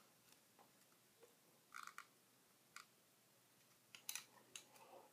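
Near silence with a few faint, short clicks and rustles of a flat iron being worked through a twisted section of hair: a small cluster a little under two seconds in, one near three seconds, and several more from about four seconds in.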